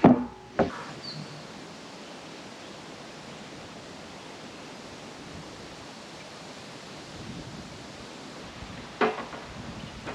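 Steady hiss of blustery wind outdoors. Sharp knocks open it, and there is another knock about nine seconds in.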